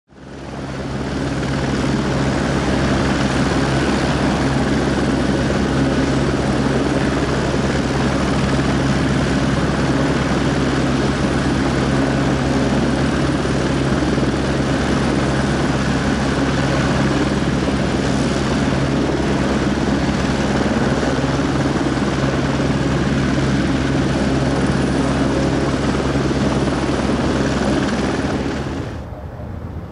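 Gulfstream G-V business jet's Rolls-Royce BR710 turbofan engines running steadily at taxi power: a constant rush with a steady low hum under it. It fades in at the start and drops away abruptly near the end.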